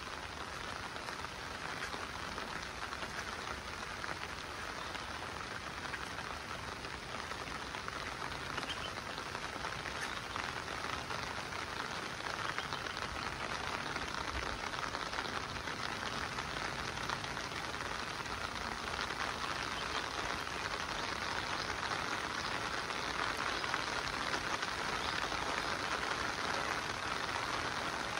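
Steady monsoon rain falling, an even hiss of many drops that grows gradually louder toward the end.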